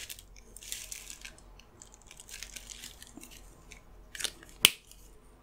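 Faint rustling and scratching of tissue paper as a brush pen with a flexible plastic nib is drawn across it and handled, then sharp clicks about four and a half seconds in as the pen's plastic cap is fitted back on.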